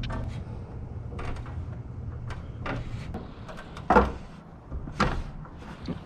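Work knocks and clunks over a low steady hum, with two louder thuds about a second apart near the end.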